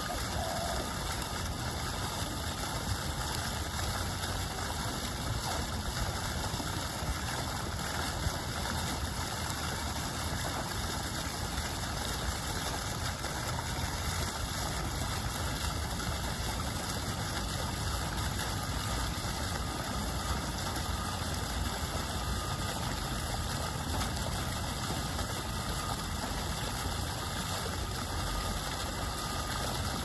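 Fountain water splashing down into its basin in a steady, unbroken rush.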